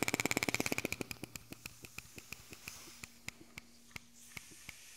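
Pneumatic air tool running off a small air compressor: rapid, even strokes that slow after about a second into separate clicks, spaced further and further apart as it winds down. A steady low hum comes in about halfway through.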